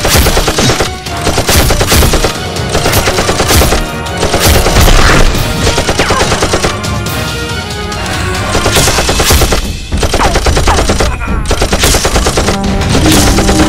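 Machine-gun fire sound effects dubbed onto a toy-blaster fight: runs of rapid shots over background music.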